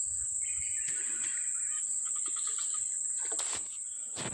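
Steady high-pitched insect drone, with a short light click about three and a half seconds in.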